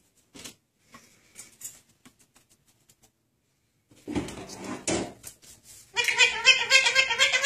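Blue Indian ringneck parakeet chattering loudly in a quick run of wavering, high notes that starts near the end, after a few faint taps and rustles.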